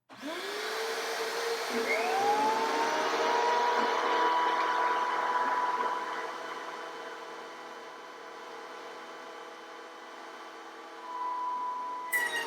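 Cutech benchtop jointer with a carbide cutterhead starting up, its motor whining up to speed within about a second, then running with a heavy rushing noise for several seconds as it takes a 1/16-inch pass off rough-sawn cherry. The noise then drops to a steadier, quieter whine and swells again near the end.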